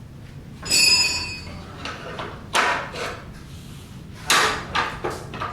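A metallic clang that rings briefly about a second in, followed by several duller knocks.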